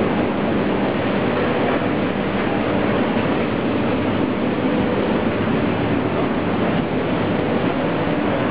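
Induction melting furnace running: a steady, loud, even noise with a faint steady hum under it.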